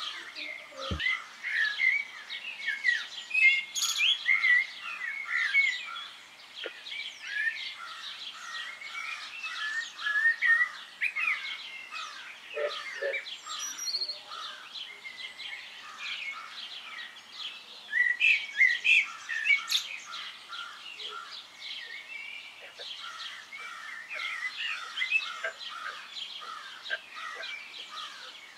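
Many small birds chirping and twittering at once: a dense, continuous chorus of short, quick calls.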